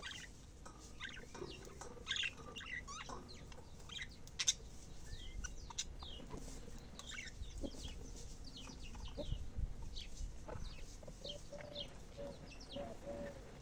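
Budgerigars chirping and chattering in quick, irregular short notes, the kind of budgie chatter played to encourage a female budgie to breed. Near the end a run of short, lower notes repeats a few times a second.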